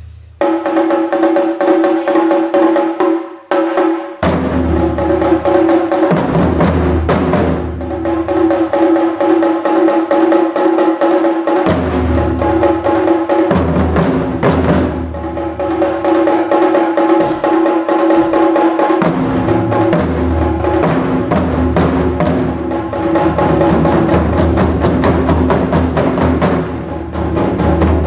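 Instrumental music in a modern style built on Japanese taiko drums, with held pitched notes over the drumming and deep low drum notes that drop out for short stretches and come back; no shouted calls.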